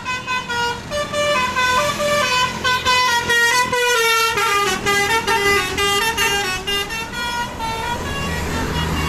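Indonesian tour bus 'telolet' Basuri musical air horn playing a fast melody of short, stepping horn notes, with a low engine rumble coming up under it near the end.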